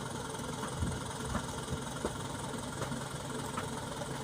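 Diesel engine idling steadily, with a few faint knocks about a second in.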